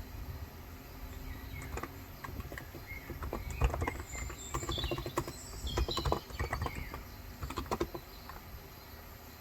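Typing on a Cox Endeavor electro-capacitive (Topre-style) keyboard with 35 g switches, keystrokes coming in irregular bursts, busiest in the middle and thinning out near the end. Birds chirp faintly in the background.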